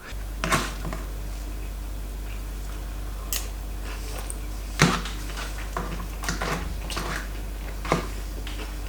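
Eating sounds: a fork clicking and scraping against the meal tray and quiet chewing, a few separate small clicks with the loudest about halfway through, over a steady low hum.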